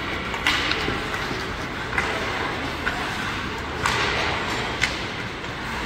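Ice hockey game in progress in an arena: a steady hum of crowd chatter and rink noise, with about five sharp clacks of sticks and puck spread through it.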